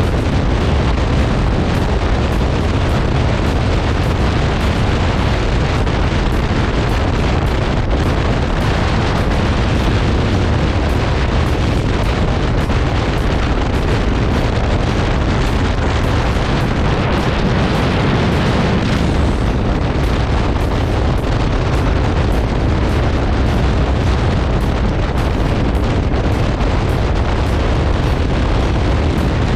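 Heavy wind buffeting on the microphone of a moving motorcycle: a loud, unbroken rumbling roar that hides any engine note.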